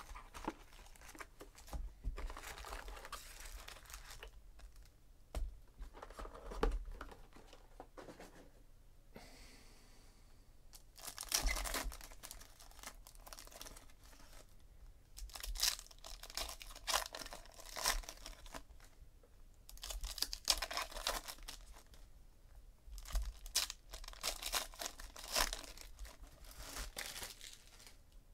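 Foil trading-card pack wrappers being torn open and crinkled by hand, in repeated bursts with short pauses between them.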